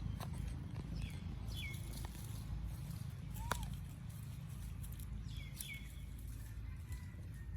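Bird chirps: short calls that drop sharply in pitch, heard several times, over a steady low rumble, with a few sharp clicks.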